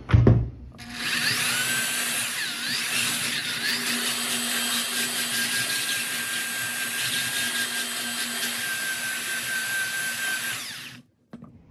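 Handheld electric belt sander running on a wooden board with a coarse 36-grit belt, a steady whine over a scraping rasp as it levels a glued joint; it stops about eleven seconds in. A short knock comes just before it starts.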